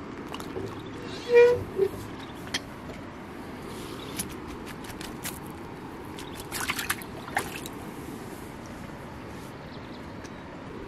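A caught fish being handled into a mesh keep net at the water's edge: scattered clicks, then a splashy rustle of net and water from about six and a half to seven and a half seconds in. A brief, loud, high-pitched squeak comes about a second and a half in. Steady wind-and-water noise lies underneath.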